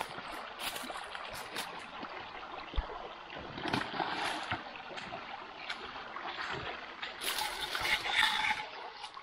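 Irregular splashing and sloshing in a stream over the steady rush of running water, as of someone wading in, with a louder stretch of splashing near the end.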